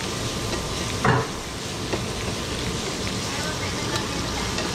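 Slices of meat frying in oil in a frying pan, a steady sizzling hiss as they are turned with tongs. A short, louder sound cuts in about a second in.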